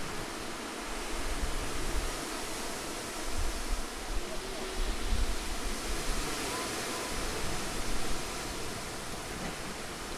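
Steady outdoor hiss with irregular low rumbles of wind on the microphone.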